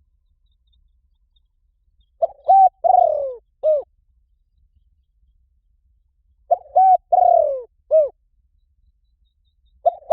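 Spotted dove cooing in three repeated phrases, about four seconds apart. Each phrase is a couple of quick coos, a longer falling coo and a short final note. The third phrase begins near the end.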